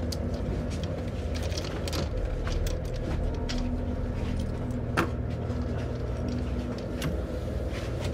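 A boat engine idling as a steady low rumble, with scattered clicks and knocks from things being handled and one sharper knock about five seconds in.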